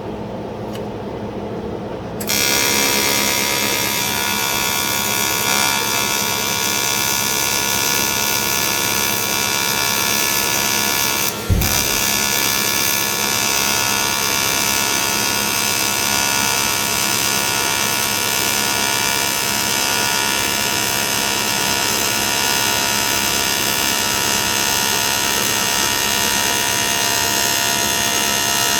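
Aluminium welding arc, a steady electric buzz that starts about two seconds in and runs on, broken off and struck again once about halfway through.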